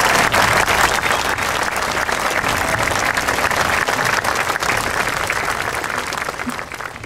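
Audience applauding: many hands clapping together, steady at first and then dying away near the end.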